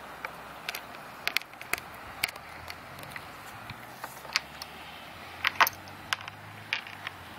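Falling sleet: irregular sharp ticks of ice pellets striking nearby surfaces over a steady hiss, with a faint low hum in the second half.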